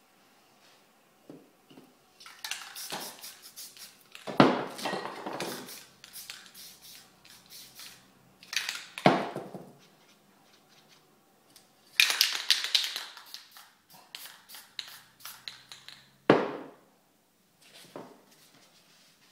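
Paper or card being pressed onto and pulled off a wet spray-painted canvas: bursts of crinkling and rustling, with three sharp slaps that are the loudest sounds.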